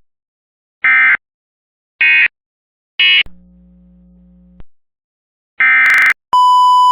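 Emergency Alert System end-of-message data tones: three short, identical warbling bursts about a second apart, closing the flash flood warning. Near the end another short data burst is followed by a steady high beep.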